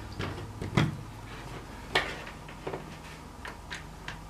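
Plastic case of a Toshiba C50 laptop knocking and clicking against a wooden workbench as it is handled and turned over: a thump just under a second in, a sharp click about two seconds in, then a few light ticks.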